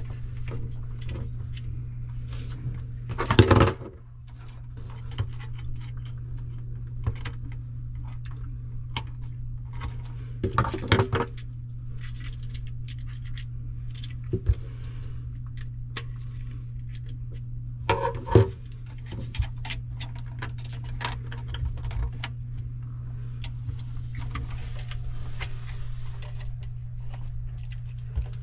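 Small metal clicks, clinks and scrapes of a screwdriver and wire being worked at a GFCI outlet's terminal screws, with three louder rattles spread through, about 3 s, 11 s and 18 s in. A steady low hum runs underneath.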